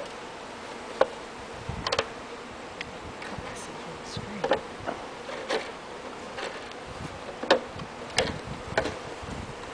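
Honeybees buzzing around a freshly installed hive and their emptied package box: a steady hum, broken by sharp ticks and taps scattered every second or so.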